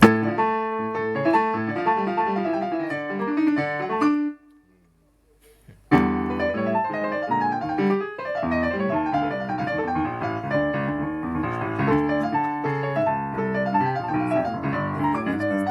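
Solo piano demonstrating an older solo-piano style, with bass notes and chords under a melody. It stops about four seconds in and starts again about two seconds later.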